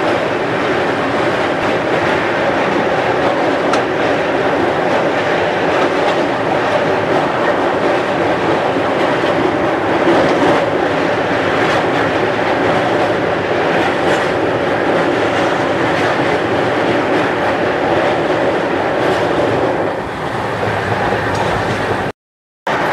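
Gatiman Express passenger coaches running at speed over a steel truss bridge, heard at an open coach door: a steady noise of wheels on rails with air rushing past. About twenty seconds in the sound drops a little and changes as the train comes off the bridge, then cuts out abruptly near the end.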